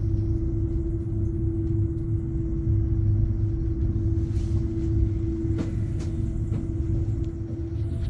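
Steady low rumble of a moving aerial cable car cabin, with a constant hum and a few faint ticks a little past the middle.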